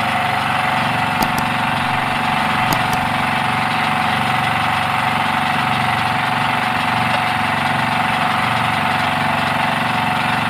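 Portable generator running steadily with an even engine drone. A few sharp clicks come about a second and about three seconds in.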